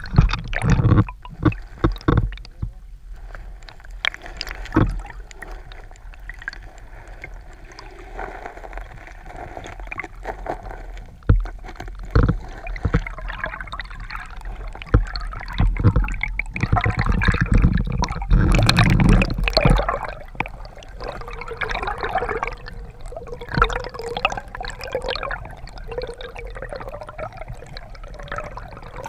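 Muffled gurgling and sloshing of river water heard from a camera held underwater, with scattered sharp knocks in the first few seconds and a louder stretch a little past the middle.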